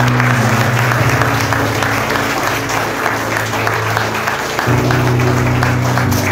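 A crowd of guests applauding, over background music with slow, held notes.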